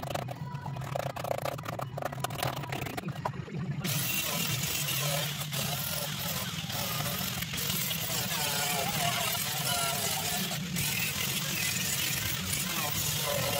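Hand scraper scratching at the steel floor pan, then about four seconds in an electric angle grinder starts and runs steadily, grinding rust off the bare steel floor.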